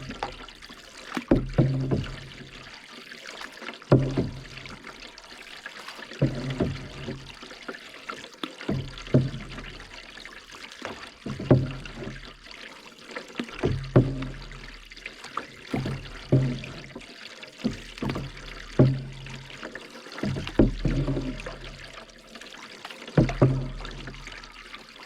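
Canoe paddle strokes through lake water, a dip and pull about every two and a half seconds, with water trickling off the blade between strokes.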